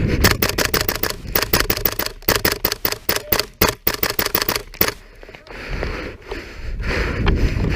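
Airsoft gun firing close by: rapid sharp shots in several bursts, about seven a second, stopping about five seconds in.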